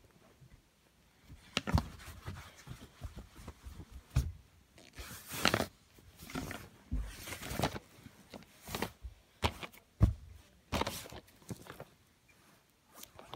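Handling noise: irregular knocks and clicks with bursts of rustling as a plastic DVD case and card are moved about by hand.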